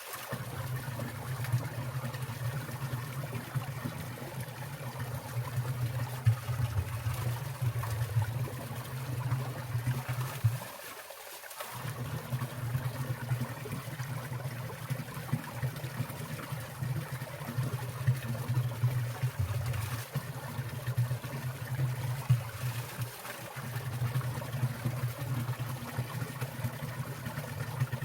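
Winter mountain stream trickling and splashing steadily, with water dripping and falling from icicles.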